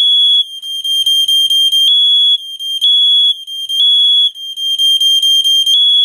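Code One smoke alarm in full alarm, set off by smoke: a shrill, loud single-pitch beeping, long beeps about once a second with a quicker stutter of short beeps between some of them.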